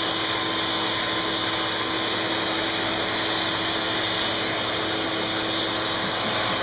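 Vacuum cleaner running steadily, its nozzle held against a cat's fur: an even rushing hiss of suction over a constant motor whine.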